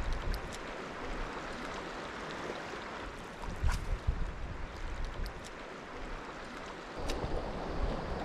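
Steady rush of flowing river water, with gusts of wind buffeting the microphone about three and a half seconds in and again near the end.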